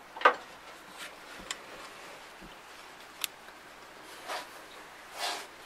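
Hands working rubber coolant hoses and their fittings off an engine's water neck: a sharp click about a quarter second in, a few light ticks, then two soft rubbing swishes near the end.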